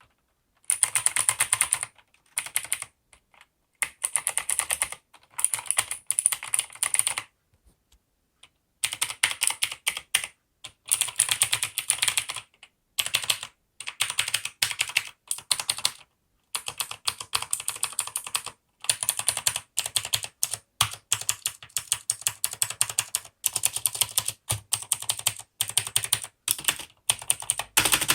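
Maxtill TRON G100K mechanical keyboard with clicky blue switches being typed on fast, in bursts of rapid key clicks with short pauses between them.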